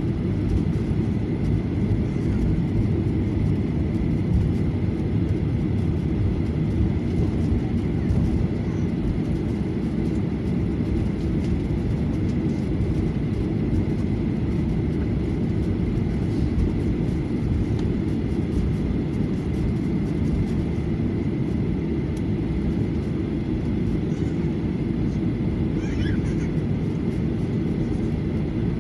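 Cabin sound of a Boeing 737-800 taxiing: jet engines running at low, steady taxi power with a low rumble and a faint steady whine.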